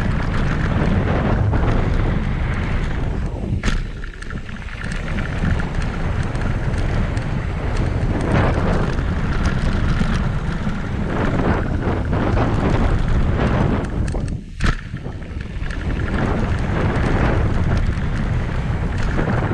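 Wind buffeting the camera microphone and mountain bike tyres running over a dirt trail at speed, a steady loud rumble. Two sharp knocks stand out, one about four seconds in and one near fifteen seconds.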